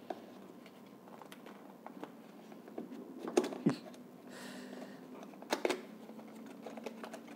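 Hands handling a small cardboard product box: scattered sharp clicks and taps of fingers on the card, with a short rustle about four seconds in as the clear seal sticker is peeled, and more clicks as the box is pulled from its sleeve.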